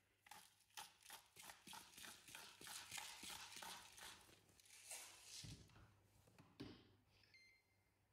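Salt sprinkled over cauliflower steaks in a frying pan: a quick run of fine ticks, about four or five a second, for the first five seconds. Then two soft knocks about a second apart and a brief faint high beep near the end.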